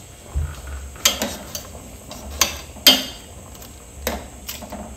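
Metal tongs clinking against the side of a stainless steel stockpot while stirring shrimp in soup: a string of sharp, uneven clinks.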